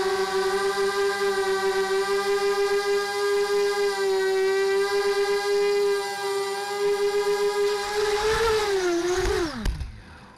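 Small FPV quadcopter's four brushless motors (ZMR1804 2400Kv with 5x3 carbon props) whining steadily in flight. Near the end the pitch rises briefly, then falls away sharply as the motors spin down, with a single knock just before the sound fades out.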